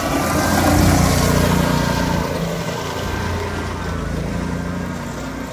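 Golf cart's small gas engine running hard as the cart slides through a turn and drives off. It is loudest about a second in and fades as the cart pulls away.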